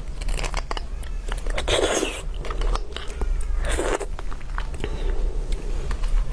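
Close-miked eating sounds as marrow is dug out of braised beef bone sections with a wooden utensil: a run of small clicks and crackles, with two louder, longer rushes of noise about two and four seconds in.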